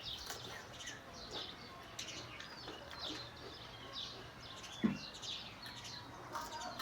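Small birds chirping repeatedly in the background, with a single short knock about five seconds in.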